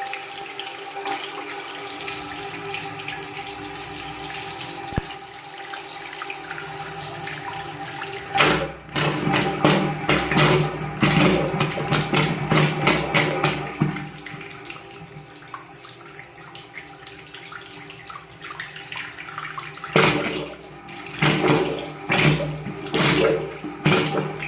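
Water spurting from a household water pipe in loud, irregular surges while the pipe is being flushed of limescale. The surges begin about eight seconds in, ease off for several seconds, then return near the end, over a steady tone.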